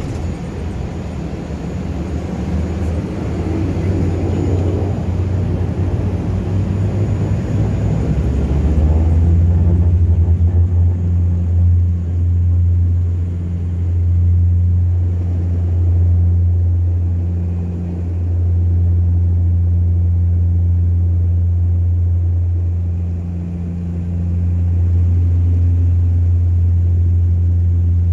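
Turboprop airliner at takeoff power heard from inside the cabin: a rough rumble with hiss for about the first nine seconds, which then falls away, leaving a steady low engine-and-propeller drone that swells and dips slightly, typical of the wheels leaving the runway.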